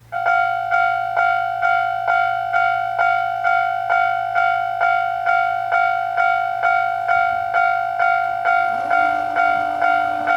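A Japanese level-crossing warning bell starts abruptly and rings the repeating 'kan-kan' tone, about two strokes a second, signalling that a train is approaching. A lower steady tone joins near the end.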